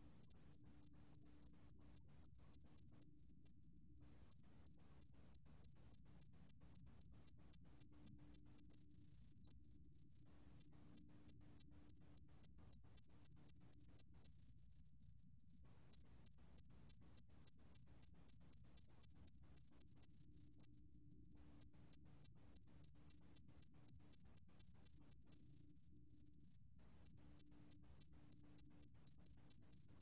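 Sae-geumbit-jongdari (a small golden sword-tail cricket) singing at 20 °C: a thin, high, single-pitched song of rapid short chirps, about five a second, broken every five or six seconds by an unbroken trill lasting about a second and a half.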